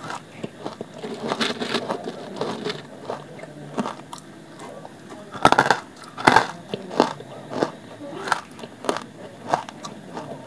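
Close-miked biting and chewing of hard, dry lumps of grey clay. There are two loud crunching bites about halfway through, then steady crunches at about one and a half a second as the lumps are chewed.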